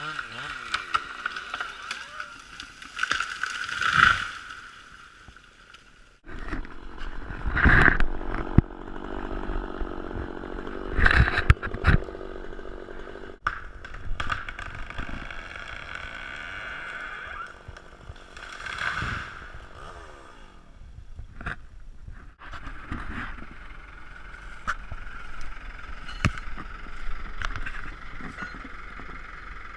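Chainsaw engine running steadily, with several loud knocks and scrapes over it. The sound cuts off abruptly a few times and resumes.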